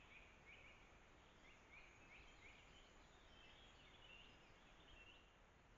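Faint bird calls, a run of short, high chirps repeating every half second or so, that stop shortly before the end, over a steady background hiss.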